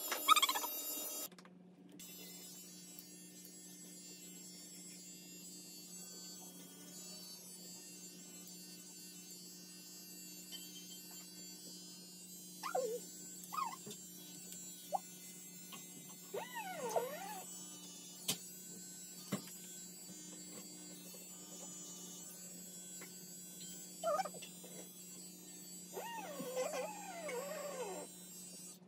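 Small electric pet clipper running with a steady hum, while a cat gives several drawn-out meows that rise and fall in pitch, a few around the middle and a longer string near the end.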